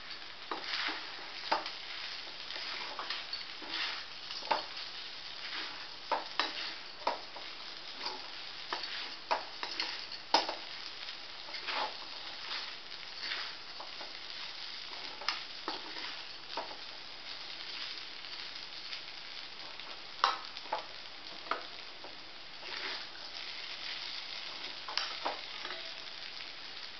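A metal spatula stirring and scraping sago pearls, potato and crushed peanuts around a metal kadai, giving irregular clicks and scrapes about every half second to second, over a faint steady sizzle from the low flame.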